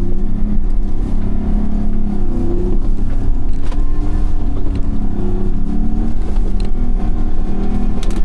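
Off-road 4x4 engine working under load as it climbs a snowy hill, its revs rising and falling.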